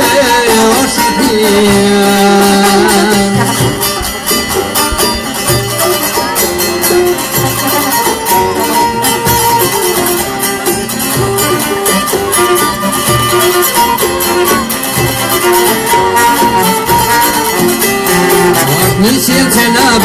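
Albanian folk song played live by a band: a long-necked plucked lute carries the melody over hand drums, including a frame drum, keeping a steady beat.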